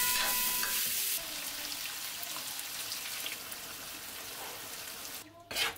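Food frying and sizzling in hot oil in a pan, louder for the first second. A short sharp noise comes near the end.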